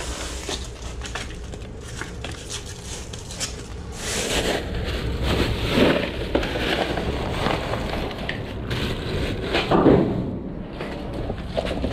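Plastic trash bags and foil party decorations being rummaged through and handled: continual crinkling and rustling, busier from about four seconds in, with a louder bump about ten seconds in.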